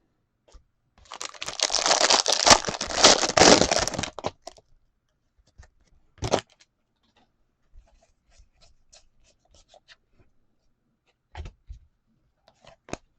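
A trading-card pack's wrapper torn open and crinkled for about three seconds, a short rustle a couple of seconds later, then faint clicks.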